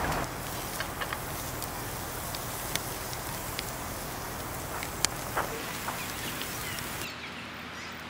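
Steady outdoor background hiss with a few sharp, light clicks and taps from food prep at a wooden cutting board: a glass oil bottle and knives being handled, and sliced peppers moved about. The high hiss drops away about seven seconds in.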